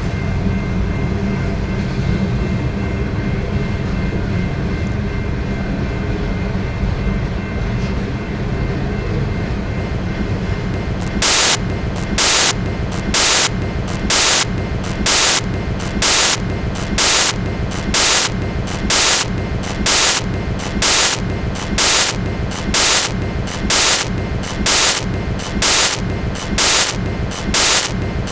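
Freight train rolling past with a steady low rumble. About eleven seconds in, a loud regular noise starts on top of it, one short hissing burst roughly every second.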